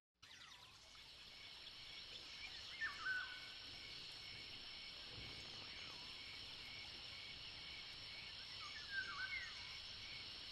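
Nature ambience: insects drone steadily in a high chorus while birds call briefly about three seconds in and again near the end. The sound fades in over the first second.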